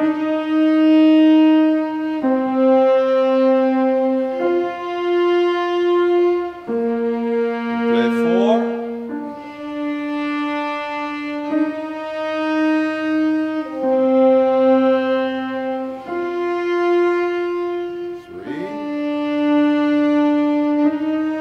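Violins, cello and grand piano play a slow cantus-firmus-style melody in long held notes, each lasting about two seconds, with the harmony shifting at each change. A quick rising run cuts across the held notes about a third of the way in and again near the end.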